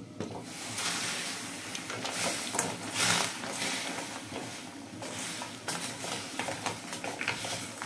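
Crab pieces sizzling in a steel kadai while a wooden spatula stirs them, with scattered scrapes and knocks of the spatula against the pan, loudest about three seconds in.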